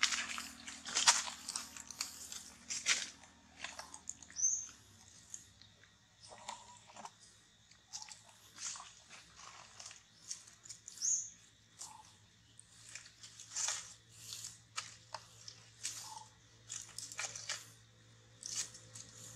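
Dry fallen leaves crackling and crunching in irregular bursts as macaques shift and move on the leaf litter, with a few short high chirps now and then.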